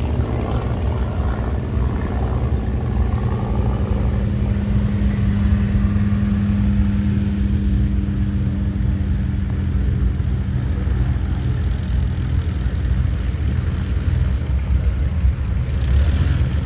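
Aircraft tow tractor's engine running as it pulls a vintage fighter along the taxiway, its note fading as it moves away, over a steady low rumble.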